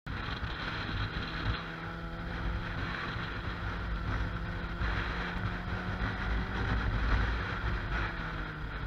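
Motorcycle engine running at a steady cruise through an exhaust with the dB killer (baffle insert) removed, a deep unmuffled note, with wind noise on the microphone.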